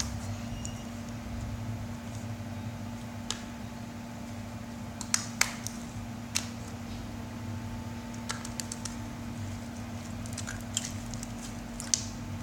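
Homemade glue slime being kneaded and stretched by hand: scattered soft sticky clicks and squelches, a few of them sharper, over a steady low hum.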